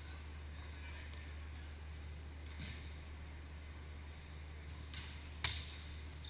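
A volleyball rally in a large echoing gym: one sharp smack of a hand hitting the ball about five and a half seconds in, with a couple of fainter ball contacts before it, over a steady low hum.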